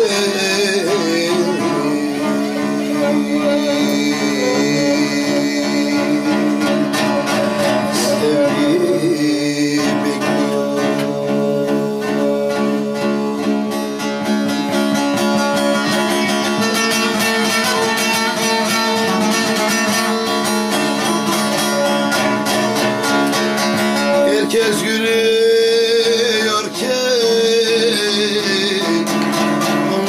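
Bağlama (long-necked Turkish saz) strummed rapidly, with a steady drone under the fast picked melody, and a man singing over it at times.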